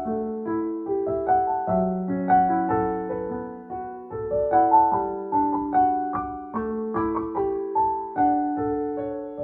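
Background piano music: a gentle melody of struck notes over flowing chords.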